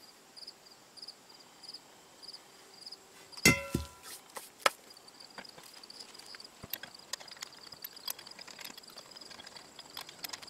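A single heavy metal clang with a short ring about three and a half seconds in, as the old cast-iron brake drum is set down, followed by light metallic clicks of small parts being handled in a tray. Crickets chirp steadily in the background.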